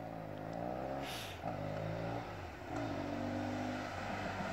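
Motorcycle engine running under way, its pitch rising and falling, with short dips about one and a half and two and a half seconds in.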